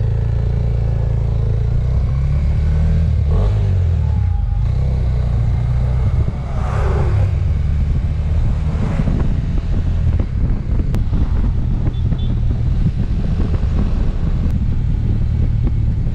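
Small Suzuki motorcycle being ridden along a road, its engine running steadily under a low rumble of road and wind noise. A bus passes in the other direction, swelling and fading about six to nine seconds in.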